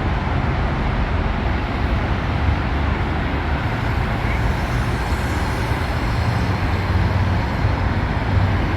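Steady low rumble and noise of a moving vehicle.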